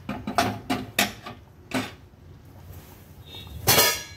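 A small steel tempering pan knocking and clattering on a gas burner's grate as it is turned and set down: a run of short knocks, then a louder ringing clank near the end.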